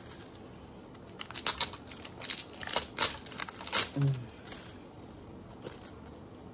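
Plastic toy packaging being crinkled and torn open in a rapid, crackly run of rustles that starts about a second in and stops a little after four seconds in.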